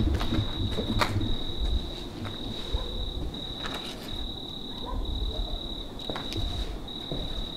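A cricket trilling steadily on one high note, broken by short pauses, with a few scattered knocks and scuffs under it.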